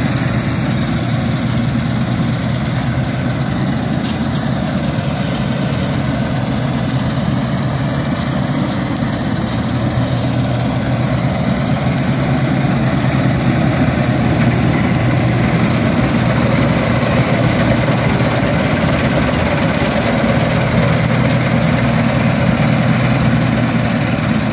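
Diesel engine of a Dashmesh 9100 combine harvester running steadily with a deep hum, growing slightly louder about halfway through.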